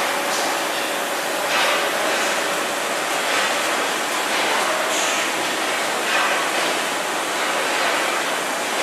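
Loud, steady din of concrete roof tile production machinery on the factory floor, with a few brief louder hissing or clattering swells.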